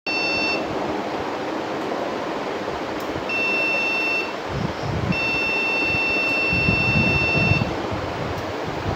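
Desktop PC's motherboard beeper sounding power-on error beeps: a short beep, then one of about a second, then a long beep of about two and a half seconds, all at one high pitch. They come over a steady background noise. The machine has no display, and the technician traces the beeps to the RAM.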